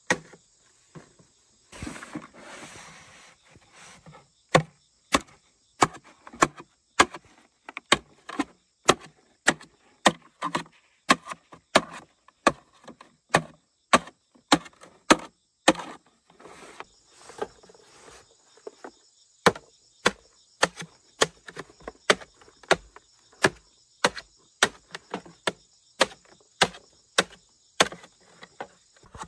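A machete chops a green bamboo pole resting on a wooden board, in sharp, regular strokes at about two a second.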